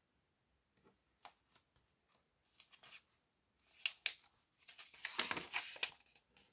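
Magazine pages being handled and turned: a few soft paper ticks and rustles, then a longer rustling swish near the end as a page is turned over.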